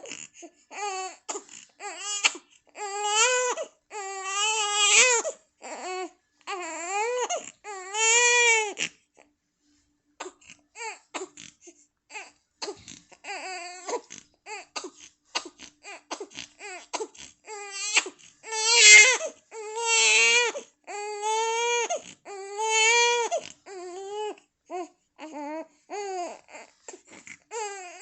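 Baby crying in a string of high-pitched wails, each about half a second to a second long, broken by short catches of breath. There is a pause about nine seconds in, then shorter, choppier cries, with the loudest wails about nineteen and twenty seconds in.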